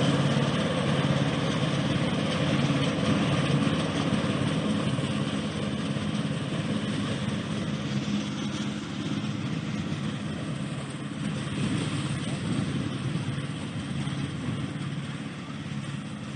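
Riding lawn mower's engine running steadily, with a broad whirring noise over the engine hum, slowly growing quieter.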